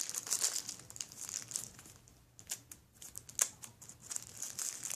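Plastic toy packaging crinkling and rustling as it is pulled open by hand, easing off in the middle with a few sharp clicks, then crinkling again near the end.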